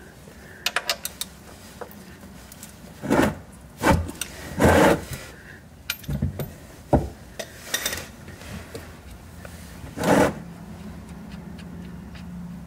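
Ratchet wrench on the 14 mm oil-pan drain plug of a Toyota Celica GT-Four, breaking it loose: a quick run of clicks about a second in, followed by several scraping and rubbing handling noises as the plug is worked.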